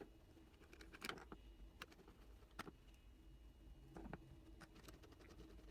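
Faint, scattered small clicks of a precision screwdriver with a pentalobe bit reinstalling the two bottom screws of a phone, metal bit ticking against the tiny screws and case.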